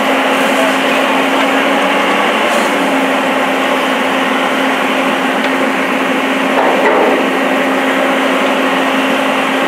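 Fully involved burning wooden building crackling steadily, over a constant low mechanical hum.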